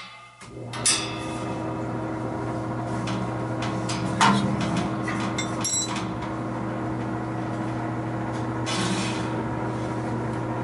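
An electric motor runs with a steady hum that switches on about half a second in and cuts off abruptly near the end. A few sharp metal knocks sound over it, the loudest about four seconds in.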